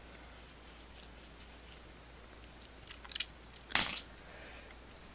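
Handling noise from an old Camp King pocket knife: quiet at first, then a few light clicks about three seconds in and a louder clack near the end.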